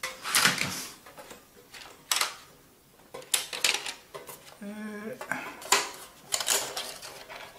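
Metal tins of Prismacolor colored pencils clattering as they are handled and a tray of pencils is lifted out. The sound is irregular sharp metallic clanks with the pencils rattling inside.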